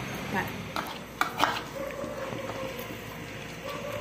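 A metal spoon clinks and scrapes against a bowl and a frying pan as a seasoning paste is scooped into a pan of oil, with about four sharp clinks in the first second and a half.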